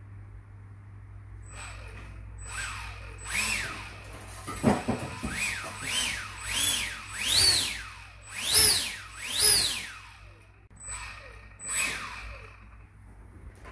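70 mm 12-blade electric ducted fan (FMS, 1900 KV brushless motor on 6S) spooling up and back down in short throttle blips. It gives about a dozen whines that each rise and fall in pitch, the loudest in the middle, with a brief clatter about a third of the way in.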